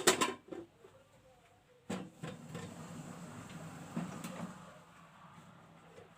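Kitchenware being handled: a sharp clink at the start, then about three seconds of rough low rustling and shuffling with a single knock, fading out.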